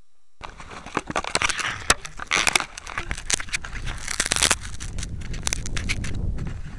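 Handling noise on a keychain camera's built-in microphone: fingers rubbing and knocking against the camera body, giving an irregular run of clicks, crackles and scrapes.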